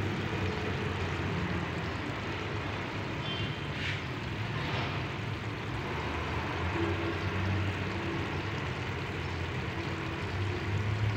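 Pot of dal cooking on the stove: a steady rumbling hiss with a low hum underneath.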